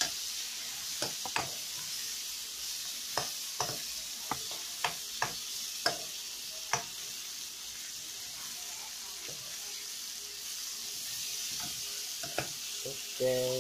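Shrimp and cucumber slices sizzling steadily in a frying pan, with a metal spoon clicking and scraping against the pan as they are stirred, the clicks coming often in the first seven seconds and again briefly near the end.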